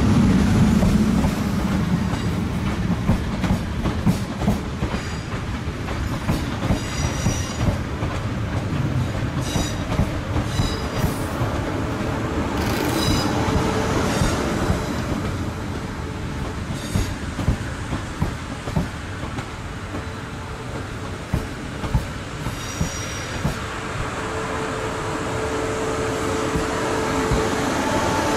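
Class 450 Siemens Desiro electric multiple unit running into the platform and slowing almost to a stop. A heavy rumble at first eases off, with clicks from wheels over rail joints and pointwork. Brake and wheel squeals come in twice, about a third of the way through and again near the end.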